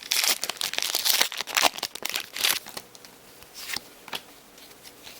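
A Marvel VS System booster pack wrapper crinkling and tearing as it is handled and opened: a dense run of rustles for about three seconds, then a few lighter crackles.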